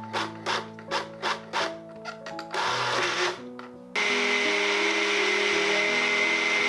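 Countertop blender puréeing a full jug of thick yellow vegetable purée. It runs in short pulses, about two or three a second, then runs continuously from about four seconds in with a steady high whine. Background music plays underneath.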